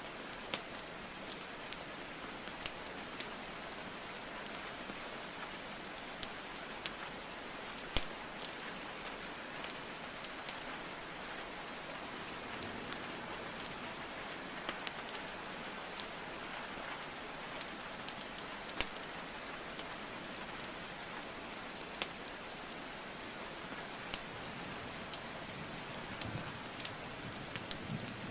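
Steady rainfall with the sharp, scattered pops and crackles of burning wood logs in a fireplace, a few of them close together near the end.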